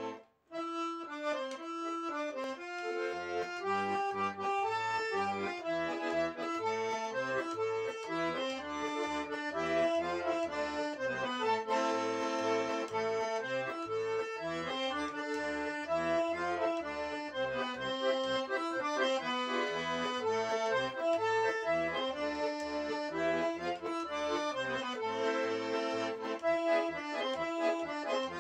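Russian garmon (button accordion) in C major playing a folk-style tune: a right-hand melody over a steady pulse of left-hand bass notes and chords.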